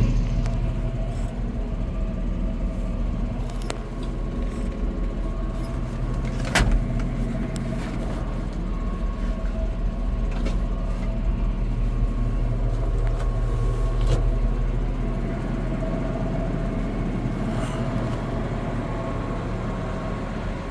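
John Deere PowerTech 9.0L six-cylinder turbo diesel of a 350D LC excavator idling steadily, with a few sharp clicks.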